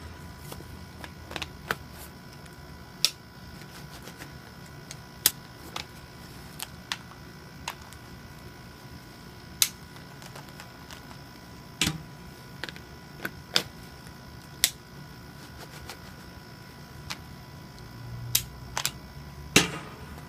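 Scattered sharp hard-plastic clicks and snaps of Blackhawk Serpa holsters and G-Code RTI wheel mounts being unlocked, swapped and clicked back into place, and a pistol being seated in a holster, irregularly spaced, with a longer rattle near the end. A faint steady hum lies beneath.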